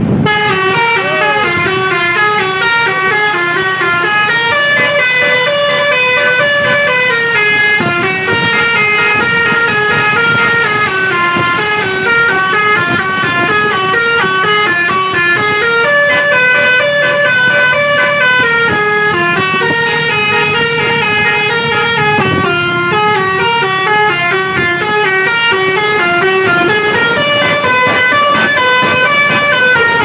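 A bus's telolet basuri multi-tone horn plays a fast, unbroken snaking melody of quickly stepping notes, in a low line and a high line together. It cuts in suddenly at the start, with the bus's rumble underneath.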